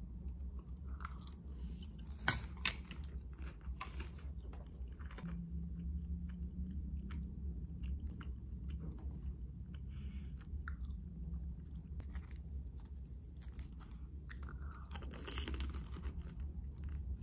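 A person biting and chewing crunchy battered, deep-fried food (Korean twigim such as fried rice cake), with scattered crackles and one sharp click about two seconds in, over a low steady hum.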